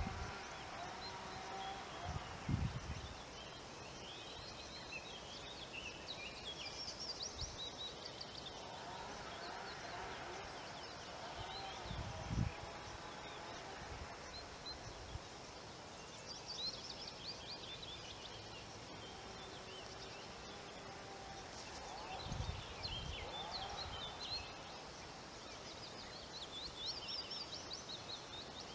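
Quiet outdoor ambience with small birds singing in short chirping spells on and off, and a few brief low rumbles now and then over a faint steady background noise.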